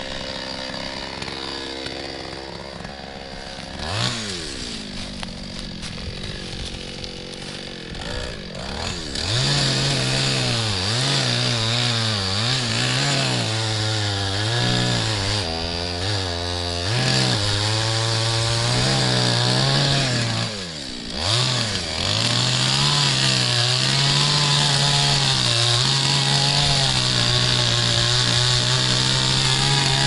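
Two-stroke chainsaw running at low revs, blipped once about four seconds in, then at full throttle cutting into a birch trunk from about nine seconds in, its pitch wavering as the chain bogs and frees in the wood. The revs drop briefly near twenty seconds, then it runs on steadily at high revs.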